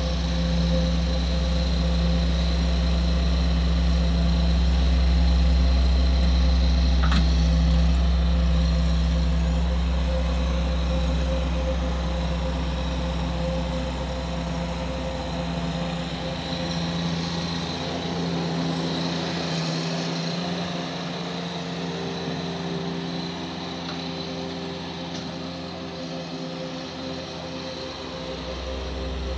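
An engine running steadily, its low rumble dropping away about halfway through.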